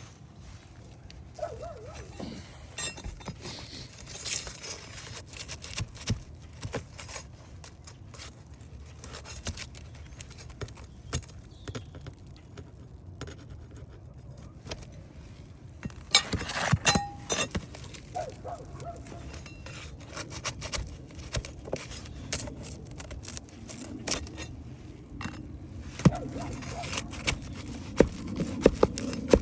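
Metal hand tools and nails clinking and scraping in irregular, scattered strokes, with a busier run of louder clinks about halfway through and a few sharp knocks near the end.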